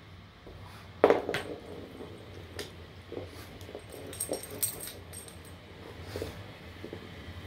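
A hardboiled egg hitting a hardwood floor with a sharp double knock about a second in, followed by several lighter knocks and clicks as it is nudged about on the wood.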